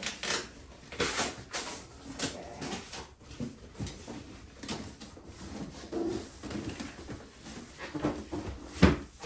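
Large cardboard shipping box being shifted on a countertop and its flaps pulled open: irregular cardboard scraping and rustling, with one sharp, heavy thump just before the end.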